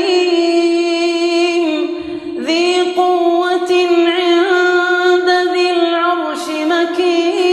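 A male Quran reciter chanting in melodic murottal style, holding long, ornamented notes with a short breath break about two seconds in.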